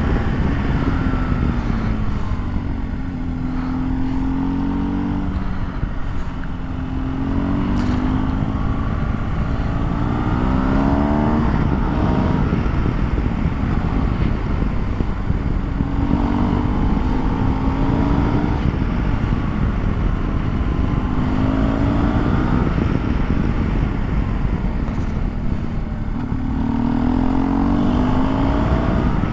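BMW R1200GS boxer-twin engine running under way. Its pitch climbs and drops back about six times as the bike accelerates and shifts up, over steady low wind and road noise.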